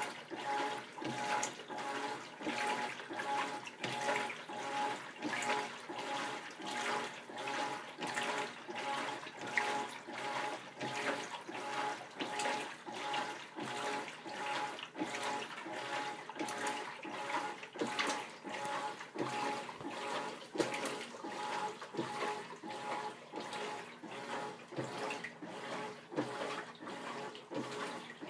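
Whirlpool WTW4800 belt-drive top-load washer agitating a full load in a tub filled to the top: water and clothes sloshing in a steady rhythm with each slow, wide stroke of the agitator, over a steady hum from the drive.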